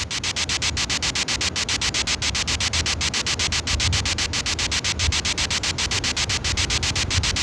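Spirit box scanning through radio frequencies: a steady, loud hiss of static chopped into short pulses about seven times a second as it jumps from station to station.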